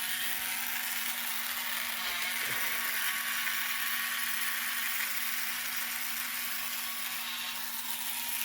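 Battery-powered electric motor of a G1 Sky Lynx Transformer toy running steadily, driving the toy along in its rolling transporter mode: a continuous whir.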